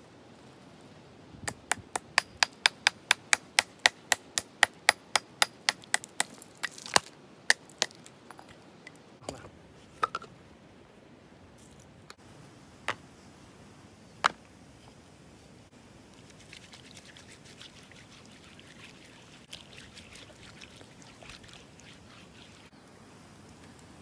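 A quick, even run of sharp chopping strikes, about three a second for some six seconds, then a few single strikes spaced a second or more apart. Faint rustling follows near the end.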